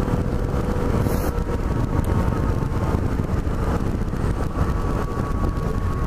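Yamaha FJ-09 motorcycle cruising steadily, its three-cylinder engine running under heavy wind buffeting on the microphone.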